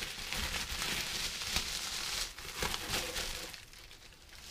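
Plastic bubble wrap crinkling and crackling as a bottle is unwrapped by hand, dense for about three and a half seconds and then dying away.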